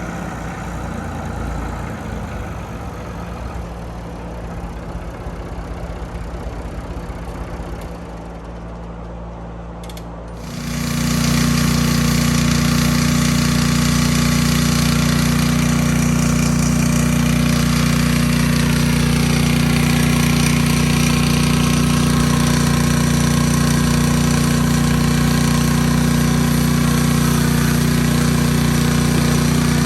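A motor-driven machine running steadily, then jumping abruptly to a much louder, steady low hum about ten seconds in.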